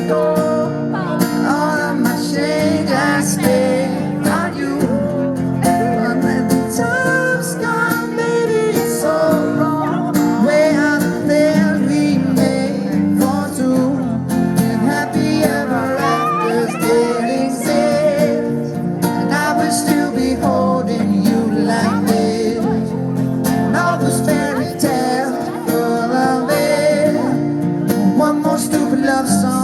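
Acoustic guitar playing steady chords with singing over it, in a live acoustic pop performance.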